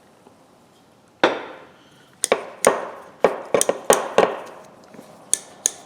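Steel linesman pliers clicking and clacking, metal on metal, as they are handled and worked at a pivot stiff with grit. A single knock about a second in, then a string of sharp, irregular clicks that come faster toward the end.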